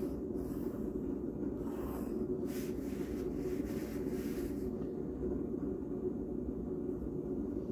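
Pencil drawing lines on paper along a steel ruler: several short scratchy strokes in the first half, over a steady low background hum.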